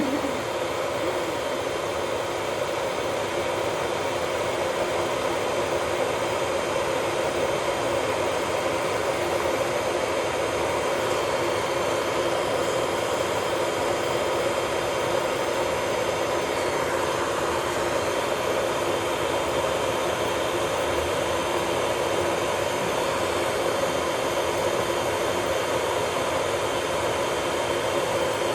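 Small electric motor of a nail-care machine whirring steadily at one even pitch, with a hiss of air over it.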